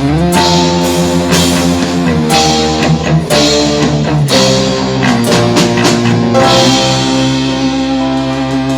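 Live dangdut band music played at a sound check, with electric guitar and drum kit, settling into one long held chord about two-thirds of the way through as the drums stop.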